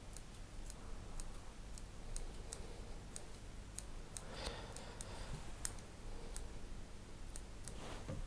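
Small curved scissors snipping at a clipped deer-hair fly head: faint, sharp clicks, about two a second, with a brief soft rustle about four and a half seconds in.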